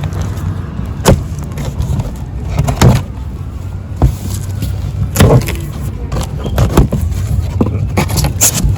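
Boat seats and parts being unpacked from a box: scattered knocks and rustles of handling, about six sharp ones, over a steady low rumble.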